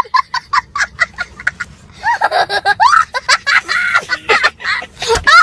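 A young child laughing hysterically: a fast run of short, breathless bursts of laughter, then high squealing laughs whose pitch swoops up and down.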